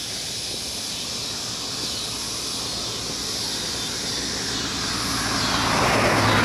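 A car driving by on an asphalt road, its tyre and engine noise swelling over the last two seconds as it comes close.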